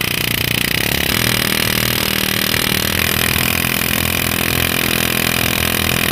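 Pneumatic vibration hammer running against a truck's steering tie rod end, a steady, fast rattling hammer that starts abruptly, used to shake the seized ball joint stud loose from its taper.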